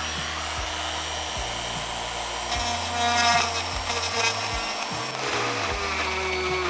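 RotoZip spiral saw running steadily as it cuts a round hole through exterior wall sheathing, with background music under it.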